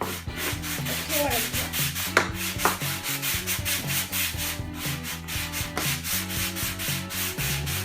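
Sandpaper rubbed back and forth over a small piece of mulga wood in quick, even strokes.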